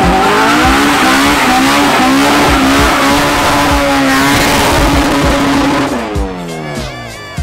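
A car engine held at high revs in a burnout, its rear tyres spinning with a loud screeching hiss. About six seconds in, the revs drop away and the tyre noise fades.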